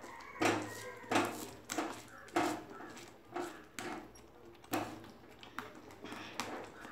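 Steel spoon stirring thick gram-flour zunka in a steel kadhai, scraping and knocking against the pan in short strokes, one or two a second. This is the stirring done to break up the last lumps of besan as the zunka cooks.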